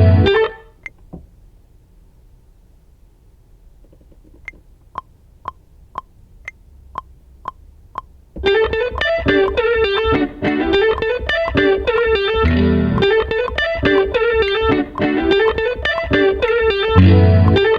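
Instrumental beat music with a plucked, guitar-like lead. The beat drops out to a quiet break of single plucked notes, about two a second. Then the full beat with heavy bass comes back about eight seconds in.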